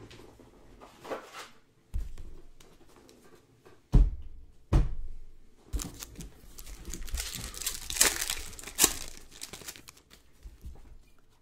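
A few dull knocks on a tabletop, then a trading-card pack's wrapper crinkling and tearing as it is ripped open over the second half.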